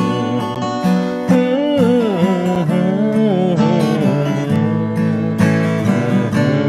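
Instrumental break of a folk-country song: acoustic guitar strumming chords under a lead melody line that bends and slides in pitch.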